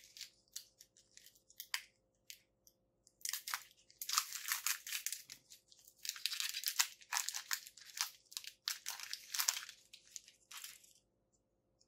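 Foil Pokémon booster pack wrapper crinkling and tearing as it is opened by hand. Light crinkles come first, then loud bursts of crinkling and ripping from about three seconds in, dying away near the end.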